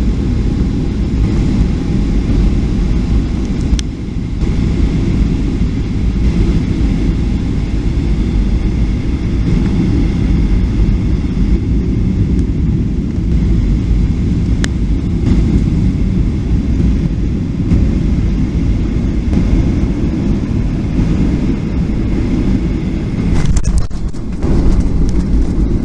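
Boeing 737-800 during its landing: a steady, loud, low rumble of engine and airflow noise with a couple of faint clicks. Near the end the noise dips briefly, then rises again louder.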